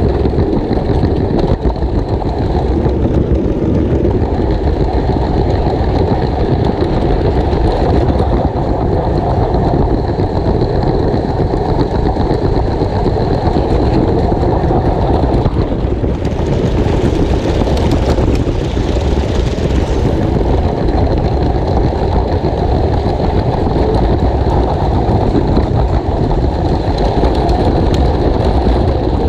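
Steady rumble and rattle of LEGO train wagons rolling over plastic track, heard from a camera riding on the last wagon. About halfway through, for some four seconds, a brighter hiss joins as a second LEGO train passes at speed on the next track.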